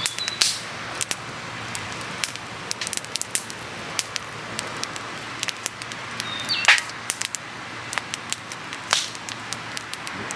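Wood campfire crackling, with many sharp irregular pops over a steady hiss; the loudest pop comes just after the middle. A short high whistle sounds twice, at the start and just before that pop.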